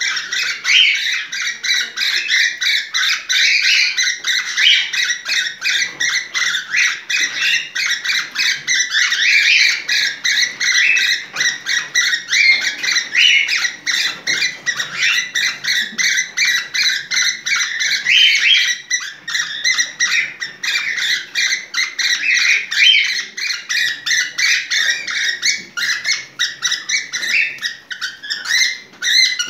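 Cockatiel in breeding condition calling nonstop: a fast, unbroken run of short chirps and squawks, the chatter of a bird in heat.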